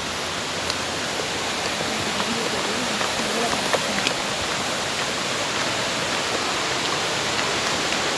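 Steady rush of water at Ravana Falls, a waterfall and its rocky stream, a constant even roar of falling and running water. It grows a little louder over the first few seconds.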